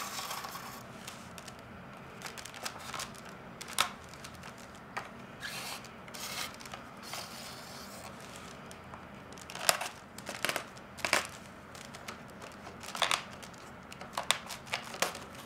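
Flat reed lashing pulled around and through a basket's reed rims: irregular crackling scrapes and sharp clicks of reed rubbing on reed, several louder snaps toward the end.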